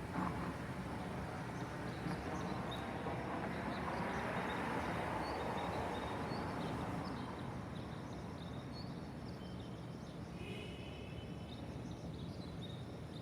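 Early-morning city ambience: a steady hum of distant traffic that swells for a few seconds as a vehicle passes, with small birds chirping over it.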